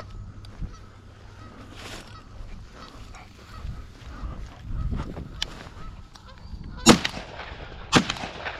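Geese honking, then two loud shotgun blasts about a second apart near the end.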